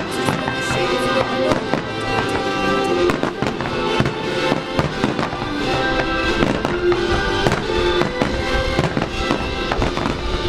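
Fireworks bursting, a quick, irregular series of bangs, over music that plays throughout.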